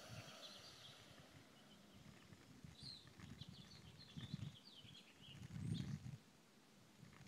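Near silence outdoors: a few faint bird chirps around the middle, and several low rumbles on the microphone about four to six seconds in.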